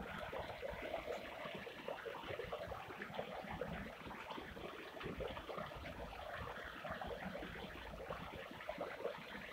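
Stream water pouring over a small mill weir: a steady splashing flow.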